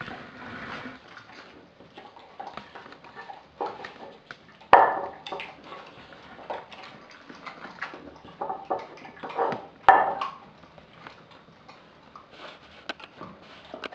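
A pitbull, German shepherd and chow chow mix dog eating raw meat and bones from a glass bowl: irregular wet chewing and crunching, with two loud sharp cracks about five and ten seconds in.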